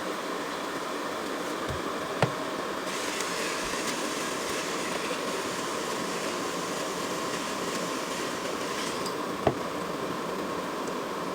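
A steady mechanical hum with two single sharp knocks, one about two seconds in and one near the end.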